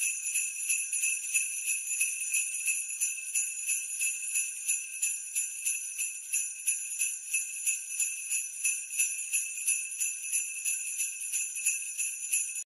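Sleigh bells jingling in a steady shaking rhythm, about three shakes a second, stopping suddenly near the end.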